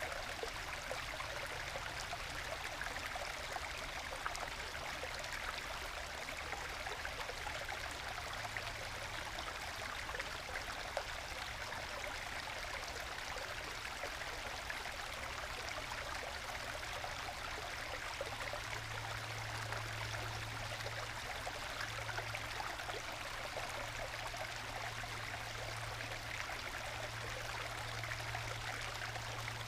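Small forest stream babbling and gurgling as it trickles over little waterfalls in solid bedrock into small plunge pools, a gentle, steady flow. A low hum underneath gets stronger about two-thirds of the way in.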